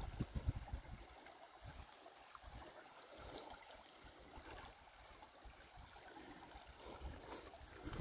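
Faint trickle of a shallow river flowing among rocks, with gusts of wind rumbling on the microphone in the first second and again at the very end.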